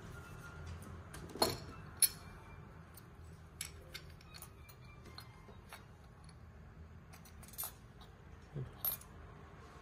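Small chrome-plated metal parts of a scuba first-stage regulator clicking and clinking together as they are handled: a handful of sharp separate clicks, loudest about a second and a half in, over a low steady room hum.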